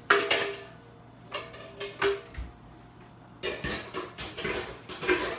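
Metal spoon scraping and clinking against a white ceramic bowl as soup is spooned up, in short bursts: a few near the start, a couple around two seconds in, and a busier run in the last couple of seconds.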